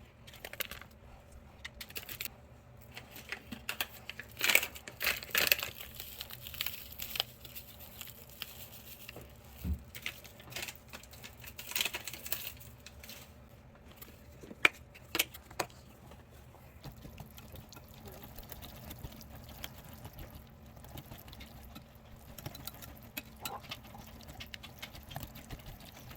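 Kitchen food-prep handling sounds: scattered clicks, knocks and rustles, with some liquid patter, busiest through the first half and thinning out later over a low steady hum.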